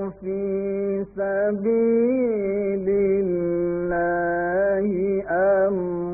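A man reciting the Quran in a melodic, chanted style, drawing out long held notes with slow rises and falls in pitch. There are short breaks for breath about a second in.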